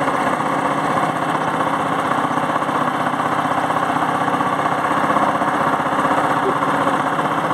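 Small boat engine running steadily as it drives a wooden boat along a river.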